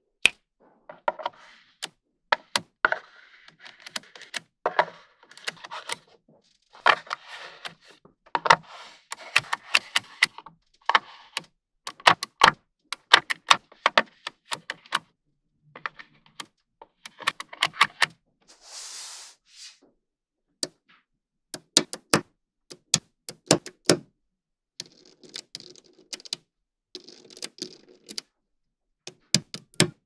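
Small magnetic balls clicking and snapping together one after another: many sharp, irregular clicks, some in quick runs, with softer rustling between them.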